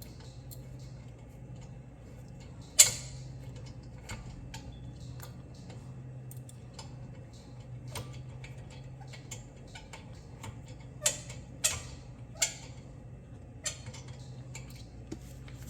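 Scattered metallic clicks and clinks from hand-handling the brake caliper hardware and tools during a brake pad change, with a sharp clack about three seconds in and a few more near the end, over a low steady hum.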